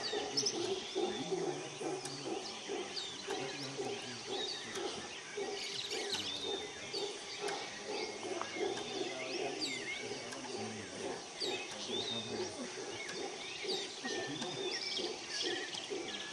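Mantled howler monkeys roaring in a continuous low, pulsing chorus, with birds chirping and twittering high over it.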